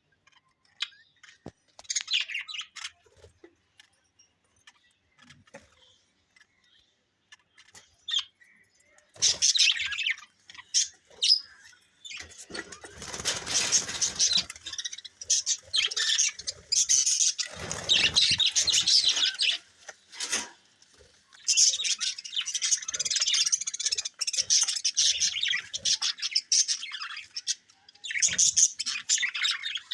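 Caged parrots chirping: only a few scattered chirps at first, then dense, continuous chirping from about a third of the way in, broken by a short lull past the middle. Two brief rustling noises come through under the chirping.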